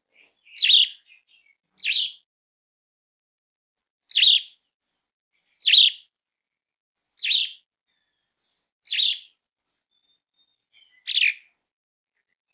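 Pied starling (jalak suren) giving about seven short, harsh calls, one every second or two, with a pause of about two seconds after the second call.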